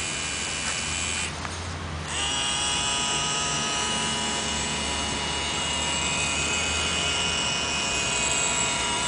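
Battery-powered remote-control airsoft tank running: a steady high whine of small electric motors and gears, setting in about two seconds in after a short burst of hiss.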